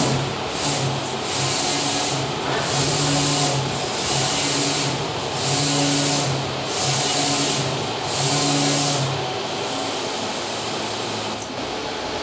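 Large-format flex banner inkjet printer running, its print-head carriage shuttling back and forth across the media. A low motor hum and a hiss rise and fall with each pass, repeating about once a second.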